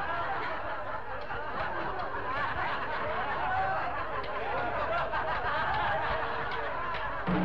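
Theatre audience laughing and chuckling, many voices overlapping at a steady level.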